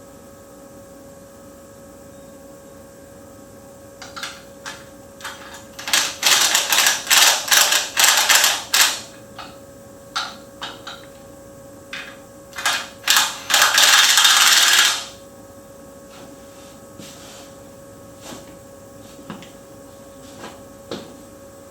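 Metal tools working: scattered clicks, then two spells of dense rapid clicking and rattling a few seconds long, over a steady hum.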